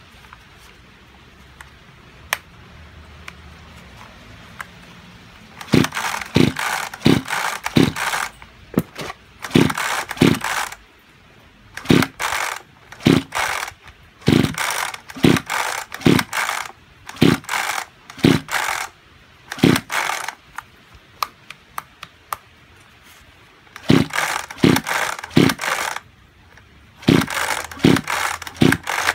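Kyoritsu chainsaw's recoil starter pulled again and again in runs of quick strokes, starting about six seconds in: the rope rasps and the two-stroke engine turns over without ever firing. The owner suspects a seized piston and low compression.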